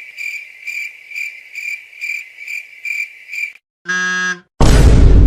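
Crickets chirping in a steady pulse, about two chirps a second, used as a sound effect; then, just before four seconds in, a short low buzzer, and near the end a very loud, harsh noise burst.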